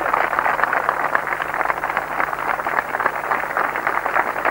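A large crowd of soldiers applauding: steady, dense clapping of many hands.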